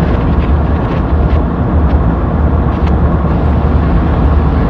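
Steady low drone of a diesel locomotive running on a model railroad, with a few faint irregular clicks.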